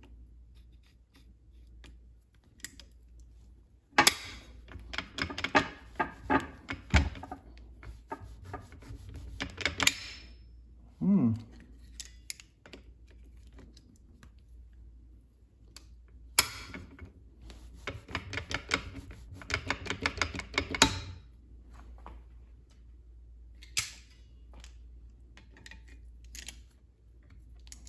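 Locking pliers clamped on a stuck pin inside a cast differential case, worked back and forth to pull it out: rapid metal clicking and rattling in two spells of several seconds each, one about four seconds in and another about sixteen seconds in, with scattered clicks between.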